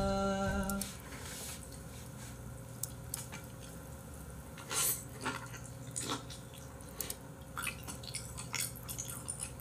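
Close-miked ASMR eating of raw beef omasum and liver: scattered wet smacks, squelches and small clicks of chewing and chopsticks. A held musical note cuts off about a second in.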